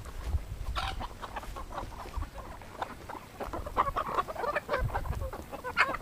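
A flock of hungry chickens clucking over and over as they are fed, the calls crowding thicker in the second half.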